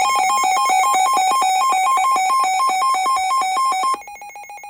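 Electronic emergency alert tone that warbles rapidly between two pitches, like a ringing phone. About four seconds in it drops to a much quieter single tone that keeps pulsing.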